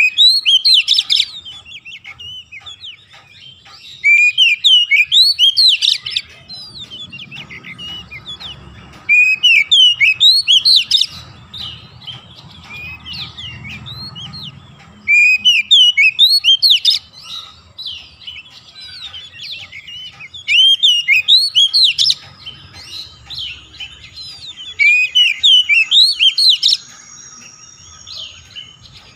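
Oriental magpie-robin singing in loud bursts of rapid chirps and whistles, each lasting a second or two and coming about every five seconds, with fainter twittering in between.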